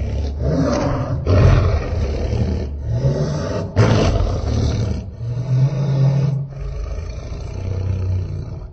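A string of Godzilla roar sound effects made for the unmade 1994 TriStar Godzilla: several deep roars in a row, each cut off sharply before the next begins.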